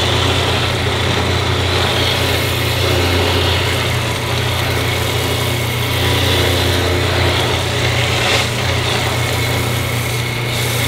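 Laguna combination belt/disc sander running with a steady motor hum while a laminated wood board's corner is held against the abrasive, giving a continuous hiss of sanding on wood.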